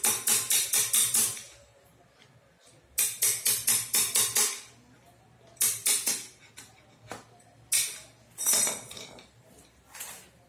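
Hammer striking a metal drift against a motorcycle front wheel hub to knock out the old wheel bearing: several runs of rapid, sharp metallic taps, about six a second, separated by short pauses.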